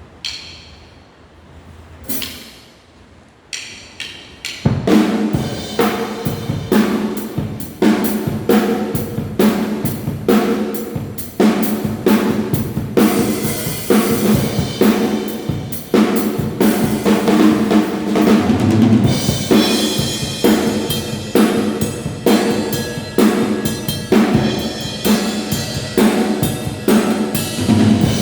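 Acoustic drum kit being played: a few separate hits at first, then from about five seconds in a steady, busy beat of snare and bass drum with sharp high strikes over it.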